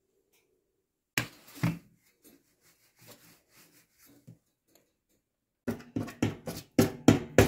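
A fork pricking a rolled pizza dough base laid on foil: a quick run of sharp taps, about four a second, starting near the end. Earlier come two short, louder knocks about a second in and faint handling sounds.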